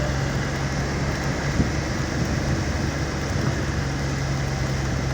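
Steady low drone of a vehicle engine with an even hiss of road or rain noise, unchanging throughout.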